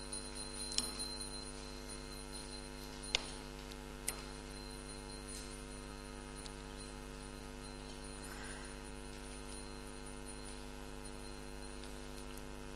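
Steady electrical mains hum: a low buzz made of several evenly spaced steady tones. A few faint clicks come in the first four seconds.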